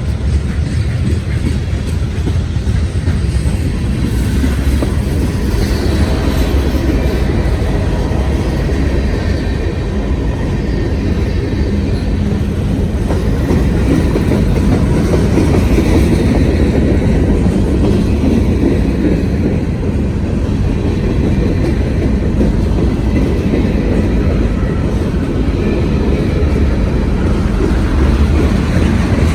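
Freight train cars rolling past at close range: a steady, loud rumble of wheels on rail with clickety-clack from the rail joints.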